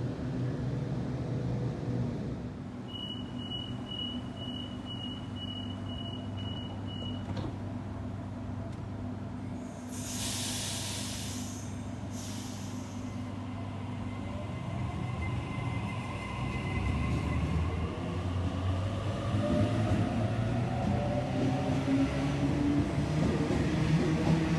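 Sydney electric double-deck train at the station: a steady low hum, a run of quick high beeps a few seconds in, and a burst of air hiss about ten seconds in. Near the end, a whine rises in pitch and grows louder as the train's electric motors pick up speed.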